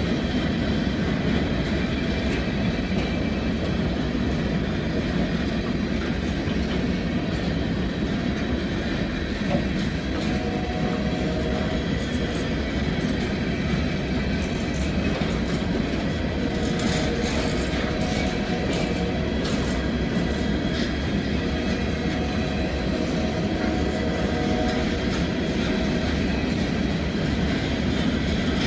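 Loaded freight cars of a Norfolk Southern manifest train rolling steadily past: a continuous rumble of steel wheels on rail with clickety-clack over the joints. Faint wheel squeal comes and goes, and a stretch of rattling clatter comes in the middle.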